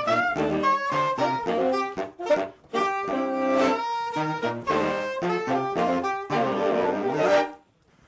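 Saxophone quartet of soprano, alto and tenor saxophones playing a tune in harmony, in short, detached notes. The playing briefly stops about two seconds in, then goes on to a held chord that is cut off near the end.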